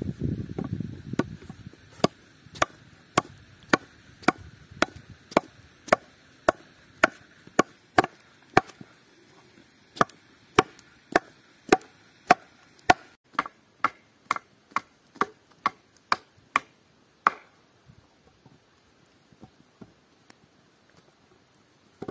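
A short scraping rustle, then steady chopping blows into a split block of wood, about two a second, with a sharp crack to each, stopping a few seconds before the end; one more single blow near the end.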